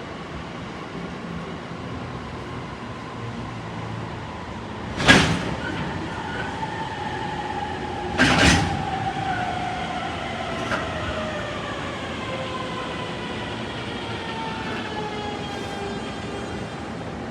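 Electric train running through the station, its motor whine sliding slowly down in pitch as it goes. Two loud sharp bangs come about five and eight seconds in.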